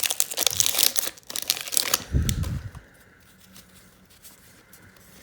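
A trading-card pack wrapper being torn open and crinkled for about two seconds, then a soft low thump, then faint handling of the cards.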